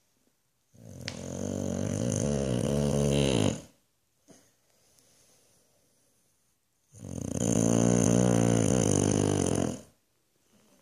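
Boxer dog snoring loudly in its sleep: two long snores of about three seconds each, the first starting about a second in and the second about seven seconds in.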